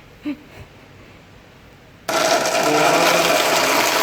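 Personal blender motor switching on suddenly about two seconds in and running steadily at speed, blending avocado.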